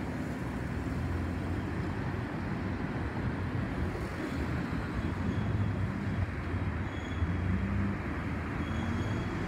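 Boeing 737-800's CFM56-7B jet engines heard as a low, steady rumble, fading into the distance as the airliner climbs away.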